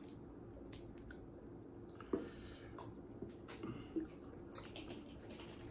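Faint wet squishing and scattered small clicks of hands peeling boiled seafood shells, over a low steady hum.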